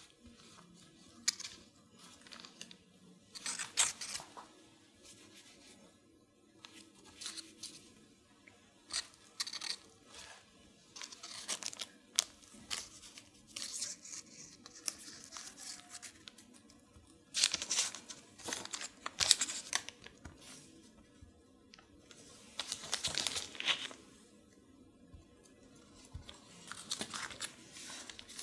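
Parchment paper crinkling and rustling in short, irregular bursts as hands press a strip of pastry dough onto the rim of a pastry disc and lift its edge.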